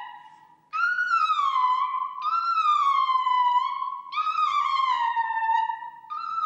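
A woman's voice singing very high wordless notes: four long held tones, each starting a little higher and sliding slowly down in pitch, the first coming in after a brief gap near the start.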